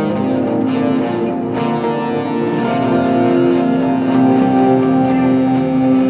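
Background music with long held, layered notes.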